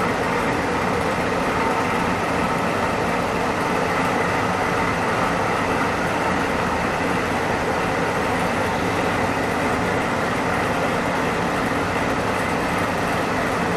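Steady rushing air and motor hum of an electric blower running without change.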